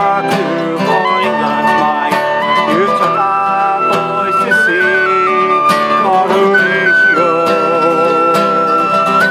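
Live sea shanty played by a small folk band: a tin whistle carries a high melody over a strummed acoustic guitar and mandolin, with a man singing along.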